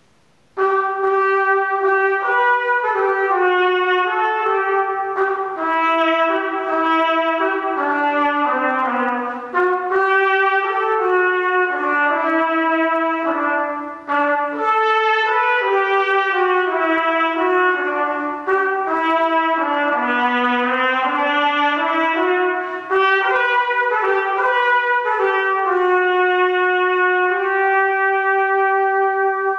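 A trumpet plays a slow, stepwise melody in several phrases, ending on a long held note.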